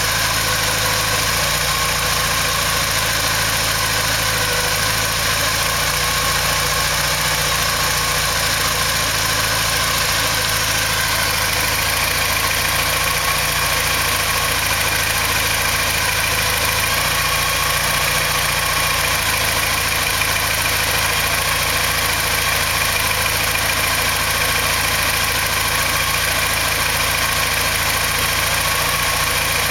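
Porsche 944 four-cylinder engine idling steadily, its defective hydraulic valve lifters just replaced with good used ones.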